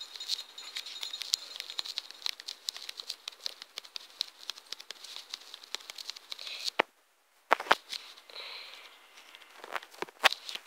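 Rapid fingertip taps on a tablet touchscreen while typing on the on-screen keyboard, a quick patter of small clicks. It pauses briefly about seven seconds in, and a few louder knocks follow, again near the end.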